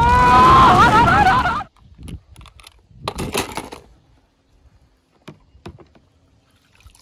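Animated-film soundtrack with gliding pitched sounds that cuts off suddenly under two seconds in. Then a hand swishes and splashes in a plastic tub of foamy soapy water, a soft splash followed by a louder swish about three seconds in and a couple of small clicks.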